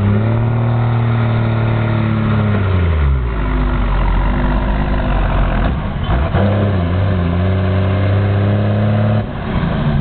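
Second-generation Dodge Ram's 5.9-litre Cummins inline-six turbo-diesel running hard under full load while pulling a weighted sled. The revs hold high, fall away about three seconds in, dip sharply around six seconds and climb back, then drop off near the end.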